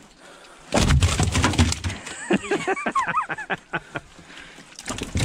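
Large flathead catfish flopping and being handled on the metal floor of a boat: a burst of wet thumps and clatter about a second in, with more knocks near the end.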